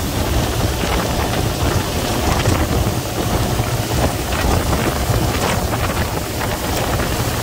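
A fast boat under way: the rushing, churning wash of its wake, over a steady low engine drone, with wind buffeting the microphone.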